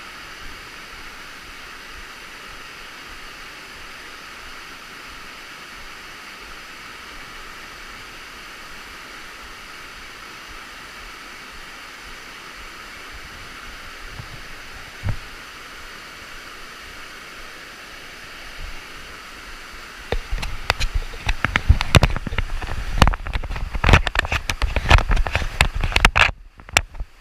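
Waterfall rushing steadily. About twenty seconds in, loud irregular knocks and rumbling break in over it and become the loudest sound.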